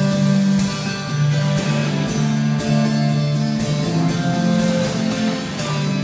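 Instrumental music on plucked, strummed guitar, with a slow line of held notes changing about every half second to a second.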